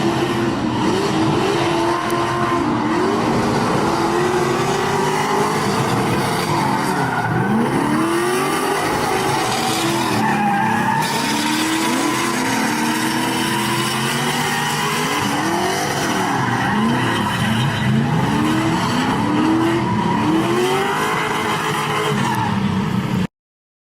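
Drift cars at full throttle, engines revving up and down over and over as they slide, over a continuous hiss of skidding tyres. The sound cuts off abruptly near the end.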